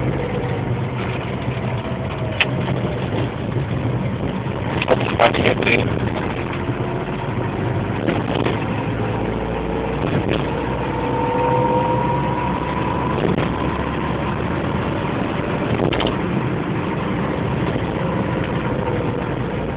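Car driving, heard from inside the cabin: steady engine and road noise, with faint engine tones slowly rising and falling in pitch. A few sharp clicks come about five seconds in.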